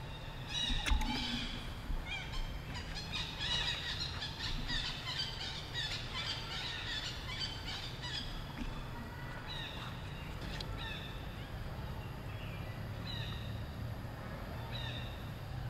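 Many short, high chirping animal calls overlapping, thick for the first several seconds and then scattered, over a steady low rumble.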